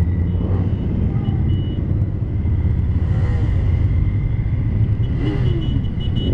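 A procession of cruiser and touring motorcycles riding past in a long line, their engines making a steady low rumble. Individual bikes shift in pitch as they go by close, about three and five seconds in.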